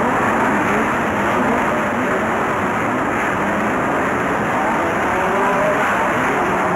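Several Formula 5000 race cars' V8 engines running together on the grid, a steady dense engine noise with faint pitches wavering up and down.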